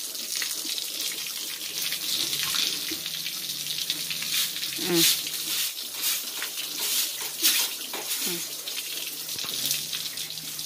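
Water from a garden hose spraying onto pigs and a wet concrete pen floor: a steady hiss with splashing. Twice, a short falling low sound cuts through, the first one loudest.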